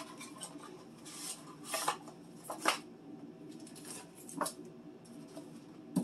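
Sticks of butter pulled from a cardboard bulk-pack box and set into a fridge bin: light rustling of cardboard and wrappers with a few soft knocks and clicks, the sharpest about two and a half seconds in and again past four seconds.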